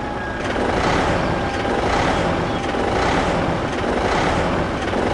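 Heavy diesel engine running steadily, a dubbed truck or heavy-machinery engine sound effect.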